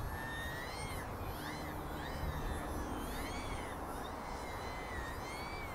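Small electric RC sport plane's motor and propeller whining overhead, the pitch rising and falling in arcs about once a second as it manoeuvres, over a low rumble of wind on the microphone.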